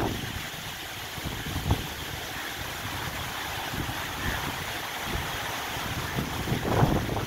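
Cyclone-force wind rushing steadily through trees, leaves and branches thrashing, with gusts buffeting the microphone. The strongest gust comes near the end.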